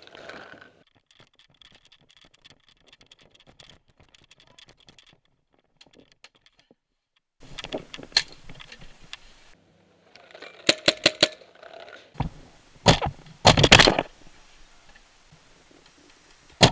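Paintball marker firing in short volleys of sharp pops: a few about eight seconds in, a quick run of four around eleven seconds, then louder, heavier knocks around twelve to fourteen seconds. Before the shooting there is only faint rustling of gear.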